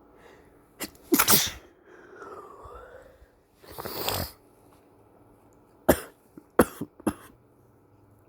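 A man sick with flu sneezing: a loud sneeze about a second in, a short vocal sound that dips and rises in pitch, a second noisy burst around four seconds in, then three short sharp sneezes in quick succession near the end.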